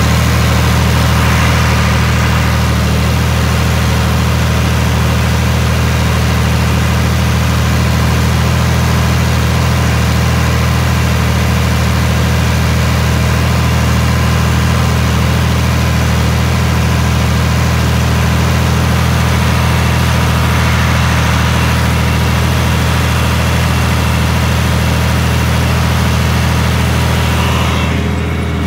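Farm tractor's diesel engine running at a steady speed, a low even drone that holds without revving.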